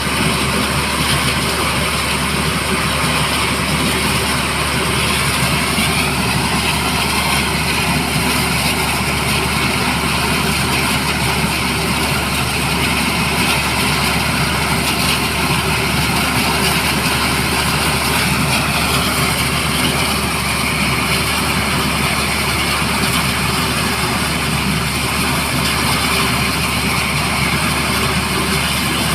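An engine running steadily and loudly, with no change in pitch or level.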